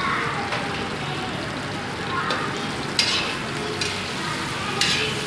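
Chilli chicken mix with freshly added green chillies sizzling in a hot pan as it is stirred, with a couple of sharper scrapes or knocks, one about three seconds in and one near the end.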